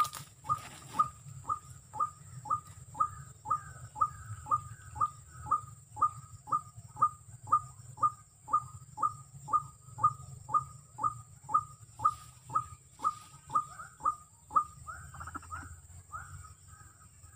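White-breasted waterhen (ruak-ruak) calling: a steady series of short, falling notes, about two a second, that turn more ragged and fade near the end.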